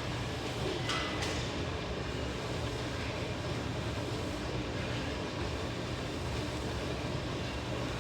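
Steady low mechanical hum with a rushing noise from a running gym cardio machine, with two brief swishes in the first second or so.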